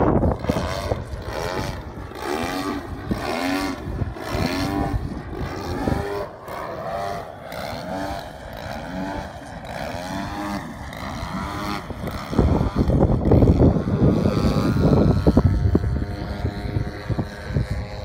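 Single-cylinder two-stroke gas engine (DA-60) of a large radio-controlled Extra 300 aerobatic plane flying overhead. Its pitch rises and falls in repeated short arcs, a little more than once a second. From about twelve seconds in, wind buffets the microphone and is the loudest sound.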